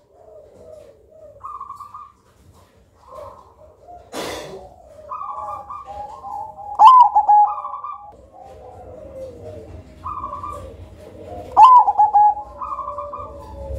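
Zebra dove (perkutut) cooing: two loud rippling phrases of rapid staccato coos come about seven and about twelve seconds in, between softer single coos. A short burst of noise about four seconds in.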